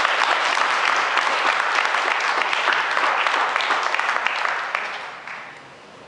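Audience applauding, many hands clapping together, dying away about five seconds in.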